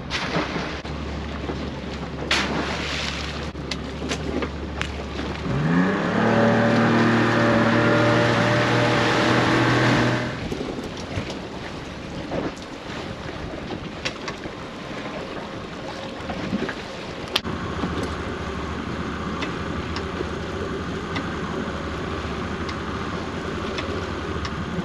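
Fishing boat's engine idling, then revving up with a rising pitch about five seconds in. It runs loud and steady for about four seconds before dropping back to a lower steady hum, with a couple of sharp knocks.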